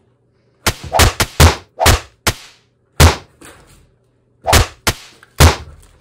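Plastic trigger spray bottle squeezed again and again, about ten short sharp spritzes in uneven bunches.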